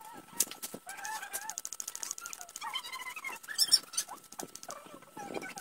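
Chickens clucking in short, repeated calls, with a few light clicks.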